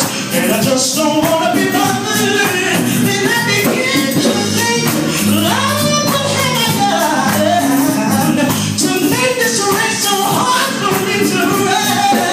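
Live gospel praise music: a singer on a microphone over a band with steady percussion, amplified through a PA in a hall.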